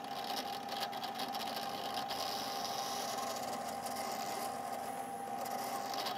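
Drill press motor running steadily with a constant whine, its bit boring down into a hardwood block and cutting out chips.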